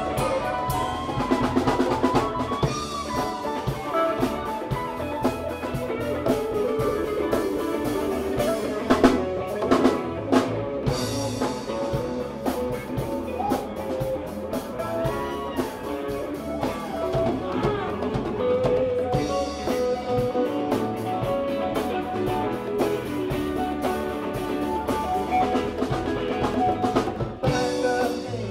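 Live rock band playing an instrumental jam: electric guitars over bass, drum kit and congas.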